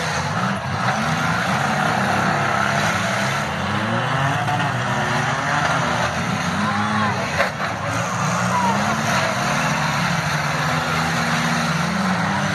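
Several demolition derby cars' engines revving and falling back as they drive and ram one another, with one sharp crash of impact about seven and a half seconds in.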